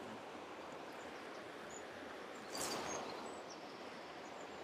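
Shallow river flowing steadily over stones, with a brief louder rustle a little past halfway and a few faint high bird chirps.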